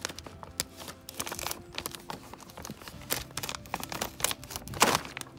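Greenhouse poly film crinkling and crackling as it is pressed against a wooden frame and slit with a utility knife, in irregular crackles with the loudest burst near the end.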